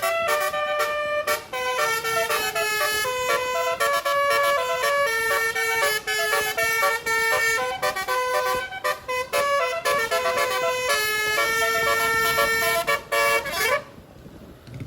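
A tourist bus's basuri telolet horn, a multi-trumpet melody horn, playing a quick tune note after note with short breaks. Near the end one note slides upward in pitch and the horn stops.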